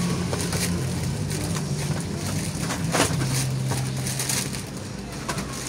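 Cardboard carton flaps and small paper pen boxes rustling and knocking as hands rummage inside a shipping box, with scattered clicks and one sharper knock about three seconds in. A steady low hum runs underneath.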